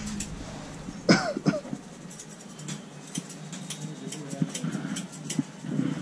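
Hands tapping and slapping on a head during a head massage, a few sharp taps a second. About a second in, a person makes a short vocal sound that rises and falls in pitch, followed by a second, smaller one.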